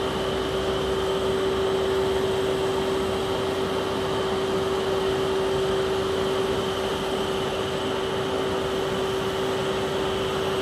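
Walk-behind road saw cutting asphalt, its engine and diamond blade running at a steady, unchanging pitch with a constant tone over the grinding noise.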